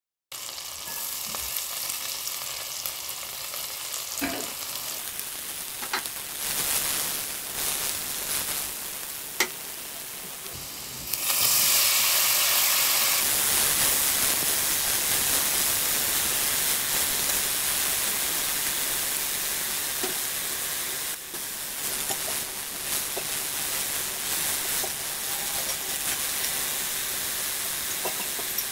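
Butter sizzling and foaming in a cast-iron pot, with a few light knocks early on. About eleven seconds in the sizzle jumps louder and stays steady as broccoli and garlic fry in the butter, stirred with a spatula.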